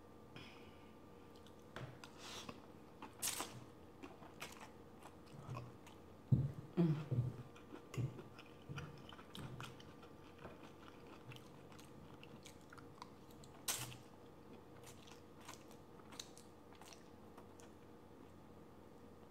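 A person chewing and eating garlic noodles close to the microphone: scattered wet mouth sounds and short sharp clicks, loudest in a cluster about six to eight seconds in.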